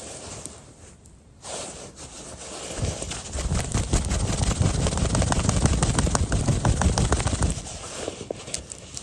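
Small wood campfire crackling with scattered sharp pops, over a low rumble that swells about three seconds in and eases off near the end.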